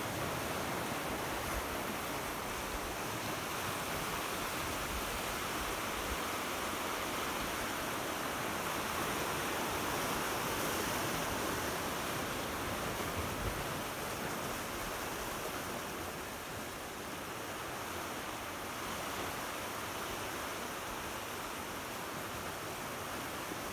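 Steady wash of sea surf, an even hiss with no distinct breaking waves, swelling slightly around the middle and easing a little later on.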